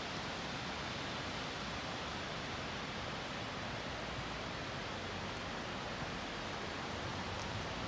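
Steady rain falling: an even hiss with a few faint scattered ticks of drops.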